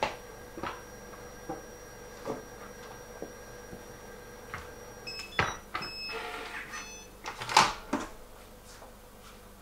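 Moulinex cooking food processor mixing cake batter with a faint steady whine and a few soft clicks. About five seconds in it stops and gives a few short beeps, and a sharp metal clack about 7.5 s in, the loudest sound, is its steel lid being unlatched and lifted.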